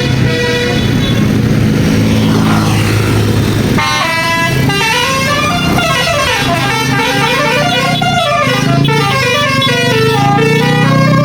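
A bus engine running, then from about four seconds in a basuri-type multi-tone musical 'telolet' horn plays a quick tune. Its notes step up and down over the engine.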